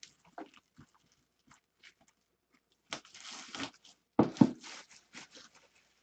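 Packaging being handled and torn open as a jersey box is unboxed: scattered crinkling and rustling, a longer rip about three seconds in, and a couple of heavy thumps just after.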